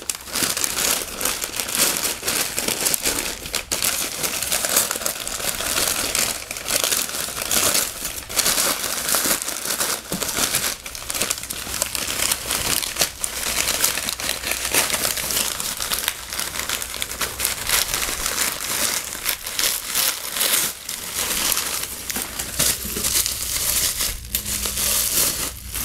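Paper packing material crumpling and rustling as it is handled, pulled out of a cardboard shipping box and unwrapped. It makes a dense, irregular run of crinkles and crackles.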